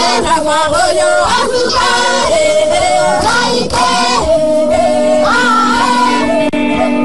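A group of voices singing together, women's voices to the fore, in a chant-like song. About four seconds in, steady held instrumental notes come in beneath the voices.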